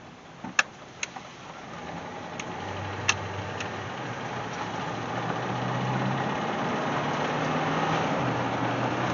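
Jeep Grand Wagoneer's AMC 360 V8 pulling and accelerating, growing steadily louder, with a few sharp clicks in the first three seconds. The engine note dips slightly near the end.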